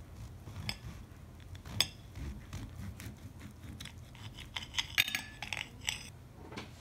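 Serrated steel table knife sawing through a paw-shaped filled pancake on a ceramic plate, with the knife and fork scraping and clicking against the plate; the sharpest clicks come about two seconds and five seconds in.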